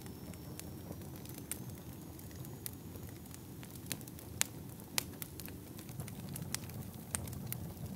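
A fire burning with a steady low rumble and irregular sharp crackles and pops, the loudest pops about four and a half and five seconds in. A faint thin high whistle sits in the background.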